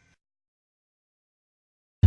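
Near silence: the last trace of a sound fades out within the first moment, then dead digital silence.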